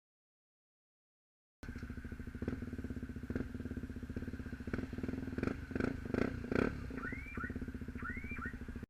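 KTM Duke 125's single-cylinder four-stroke engine, breathing through an Arrow aftermarket exhaust, idling with a steady rapid beat. It cuts in after a short silence, and a few louder pulses come a little past the middle.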